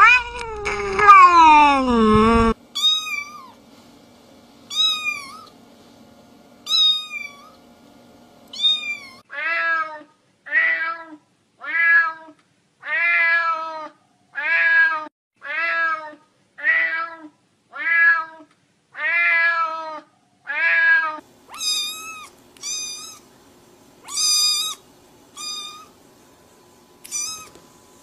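Cats meowing: a loud, long meow falling in pitch at the start, then short high-pitched mews about every two seconds. From about nine seconds in comes a regular series of short meows about one a second, and near the end higher, shorter mews.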